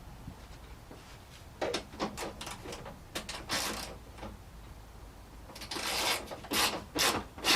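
Clicks, knocks and scraping of a car's plastic headlight unit as it is shifted and adjusted in its mounting brackets. There is a scattered group of clicks about two seconds in, then a denser run of scrapes and knocks near the end.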